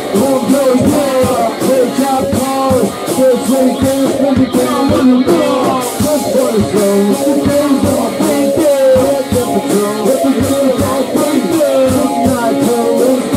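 Loud rock band music with guitar and a fast, steady drum beat, with some voice over it.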